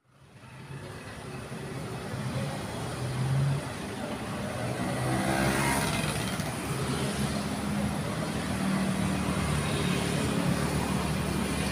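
City road traffic: motor scooters and cars running past with a steady engine hum, fading in at the start. One vehicle passes close about three to six seconds in.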